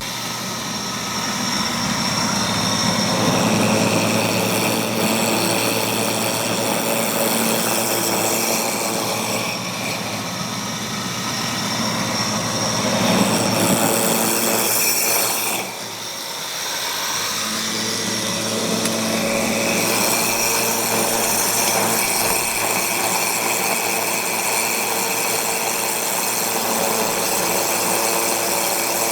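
Homemade grain grinder running steadily as it grinds a batch of field corn into cattle feed, with a short dip in level about halfway through.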